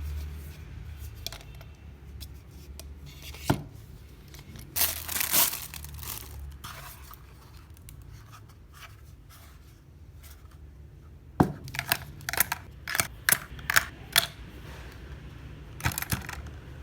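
Packaging being torn and crinkled during unboxing, with a rustling stretch about five seconds in and a series of sharp clicks and taps in the second half, over a low steady hum.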